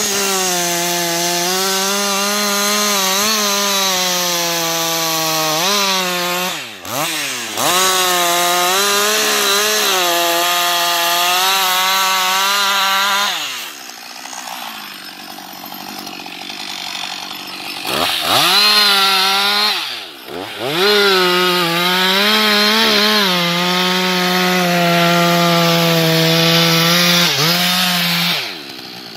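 Husqvarna 560XP two-stroke chainsaw cutting into a tree trunk at full throttle during felling cuts, its pitch sagging and recovering as the chain bites. The throttle is let off sharply twice, about seven and twenty seconds in, and for about four seconds in the middle the saw drops to a quieter idle before revving up for the next cut.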